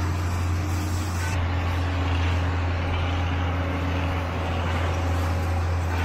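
John Deere tractor's engine running steadily as it pulls a wheel hay rake past, with the rustle of the rake wheels sweeping through the cut hay.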